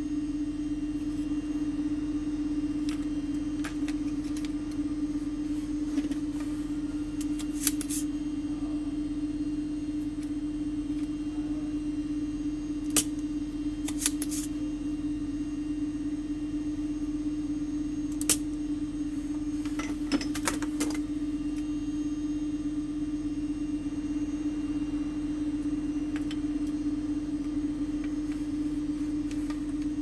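Steady electrical hum, with a handful of short, sharp clicks and taps of small tools on a repair bench scattered through it.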